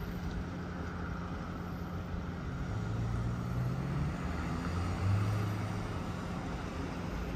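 Outdoor ambience: a steady low hum of distant road traffic, with an engine drone that rises about three seconds in and again about five seconds in.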